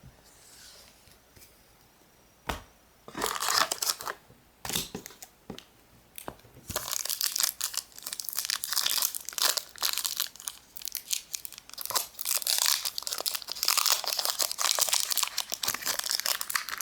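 Foil booster pack wrapper being crinkled and torn open: a few short separate crinkles at first, then continuous crinkling and tearing from about seven seconds in.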